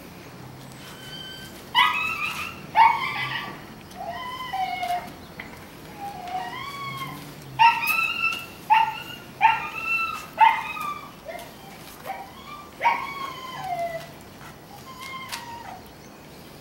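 A 12-week-old Dobermann puppy giving a run of short, high-pitched play yips, more than a dozen, some sliding up or down into whines.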